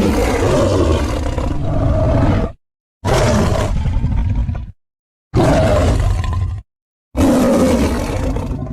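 Four separate roars of a giant ape in film sound design (King Kong), each about one and a half to three seconds long and set apart by brief silences. They are deep and rough, and the last one fades away near the end.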